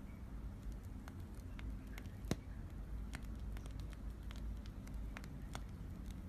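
Foamy slime, with shaving foam worked into it, being squeezed and kneaded, giving many small crackling pops as air bubbles burst. One pop about two seconds in is clearly louder than the rest.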